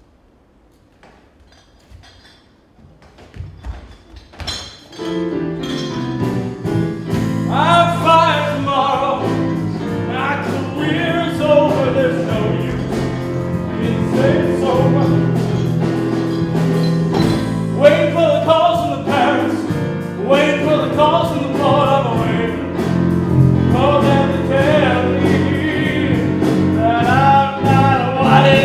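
Music with a singing voice: after a few seconds of near quiet, the accompaniment comes in about five seconds in, and the singing starts a few seconds later and carries on.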